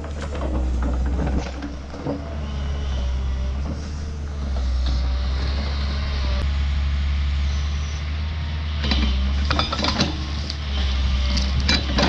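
New Holland tracked excavator's diesel engine running steadily under hydraulic load, while its attachment breaks into stumps and roots with irregular cracking and crunching of wood, the cracks clustering in the second half.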